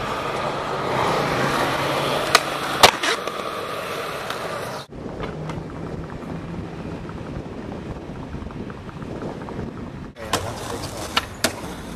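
Skateboard wheels rolling on concrete with a steady rumble, broken by two sharp clacks of the board about two seconds in. After a sudden change comes the rolling of a skateboard along a city street among traffic, and a few more sharp clacks near the end.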